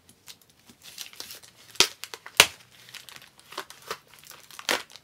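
Plastic shrink-wrap being torn and crinkled off a new book: irregular crackling with a few sharp louder snaps, about two seconds in and again near the end.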